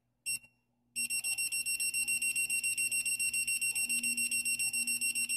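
GA 4H RC transmitter's built-in beeper: one short high beep, then from about a second in a fast, even run of beeps as the minus trim button steps the dual-rate steering setting down, each beep one step of the adjustment.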